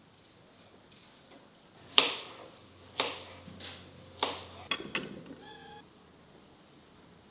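Knife chopping cucumber on a wooden cutting board: three sharp chops about a second apart, then a few quicker ones, followed by a short pitched note.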